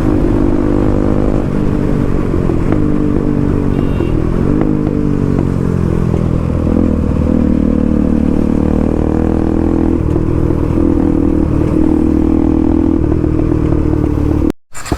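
Motorcycle engine running under way, its pitch rising and falling with the throttle. The sound breaks off for a moment near the end.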